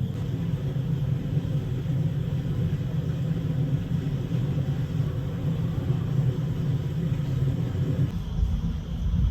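Steady low rumble that changes character about eight seconds in.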